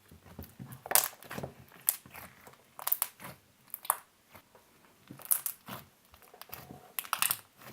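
Ninja slime being squeezed and pressed in the hands, giving clusters of sharp clicks and crackles about once a second.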